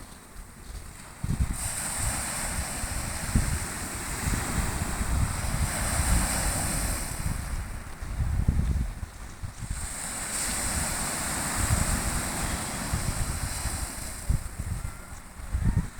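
Black Sea waves washing onto the shore, surging twice with a lull between, with wind buffeting the microphone.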